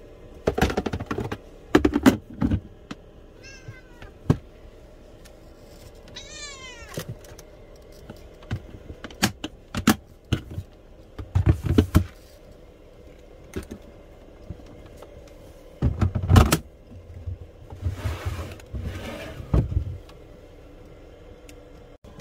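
Dry cat kibble rattling and clattering as it is poured into a bowl and handled, with the loudest clatter about 16 seconds in and a rustle of a bag near the end. A cat meows twice, briefly at first and then in one longer, falling meow.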